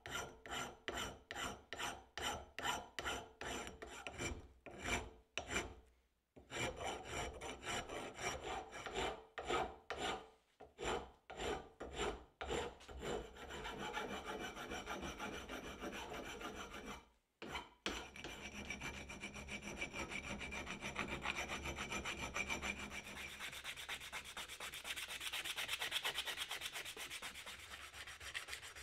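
Hand file rasping across the edge of a steel axe head held in a vise, smoothing the freshly cut profile. It starts as separate strokes about two a second with short pauses, then becomes faster continuous filing, and near the end changes to a finer, quicker rubbing of sandpaper on the steel.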